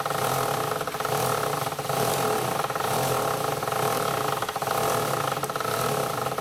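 An engine running steadily at an even, unchanging pitch, with faint light clicks over it.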